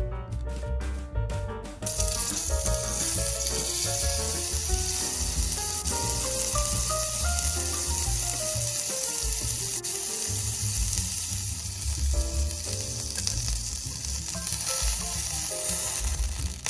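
Food sizzling as it fries in hot oil in a miniature pan, starting about two seconds in and holding steady. Background piano music plays throughout.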